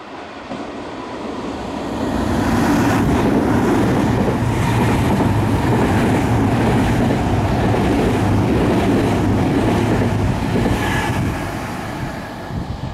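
Nankai 12000 series electric train running through the station platform. Its wheel and running noise builds over the first couple of seconds, holds steady and loud for about eight seconds as the cars go by, then fades toward the end.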